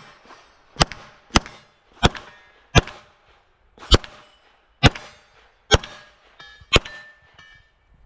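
Eight rifle shots fired at an uneven pace of roughly one a second. Each has a brief ringing tail.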